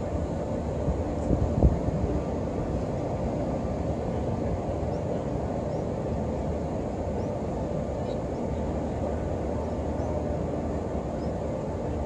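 Steady murmur of a large crowd of pilgrims, with two brief knocks about a second and a half in.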